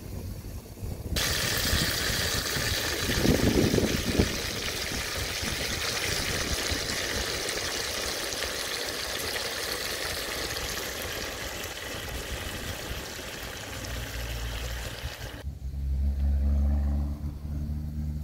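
Pangasius steaks and green peppers sizzling in a pot with a steady hiss. Near the end the hiss stops abruptly and a low hum takes over.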